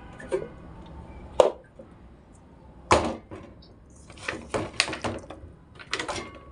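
Kitchen utensils knocking and clattering against a bowl while ingredients are mixed together: a few separate sharp knocks, then a quicker run of clatter in the second half.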